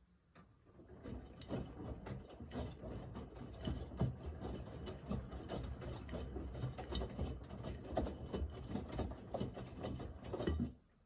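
Miele Navitronic W3985 washing machine's drum turning through one stroke of its wash rhythm, the laundry tumbling with a dense rubbing, clicking patter over a low rumble. It builds up over the first second or so and stops suddenly near the end.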